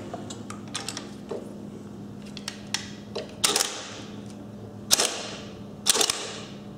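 A cordless drill driving a dog-clutch starter on a Honda ATC 350X engine gives three short, sharp jolts about a second apart, each dying away within half a second. The drill is cutting out under the load instead of spinning the engine over. A few small clicks come before the jolts, and a faint steady low hum runs underneath.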